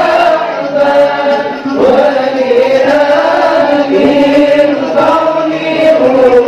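Voices chanting maulid sholawat, devotional praise of the Prophet, in long held notes that glide slowly up and down without a break.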